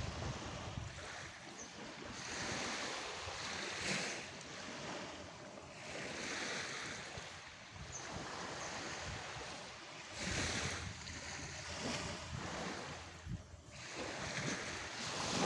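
Surf washing onto a beach, a rushing noise that swells and fades every couple of seconds, with some wind on the microphone.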